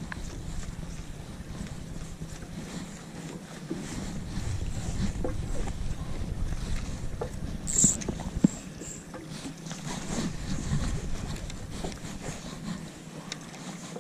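A fishing boat on open water: a steady low motor hum, with wind rumbling on the microphone that grows heavier from about four seconds in. A brief sharp high click comes about eight seconds in, likely from the rod or reel.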